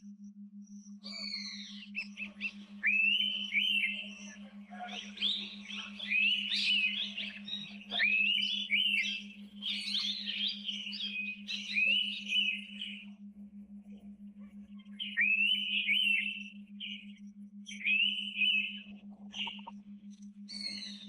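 Indian pitta whistling its call over and over, each whistle sweeping up and then holding, mixed with other birds' chirps. The calls stop for about two seconds past the middle, then resume. A steady low hum runs underneath.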